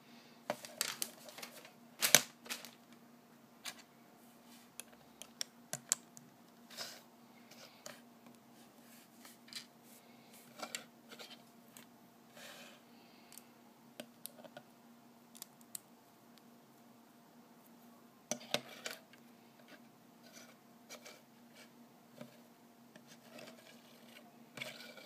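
Plastic LEGO bricks clicking and rattling as they are handled and pressed together on a wooden tabletop, in scattered clicks with the loudest clusters about two seconds in, past the middle, and near the end.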